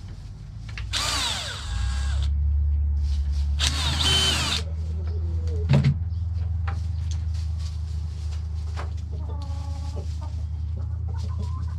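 Power drill running in two short bursts of about a second each, drilling holes in a bucket for chicken-waterer nipples. Chickens cluck briefly near the end, over a steady low hum.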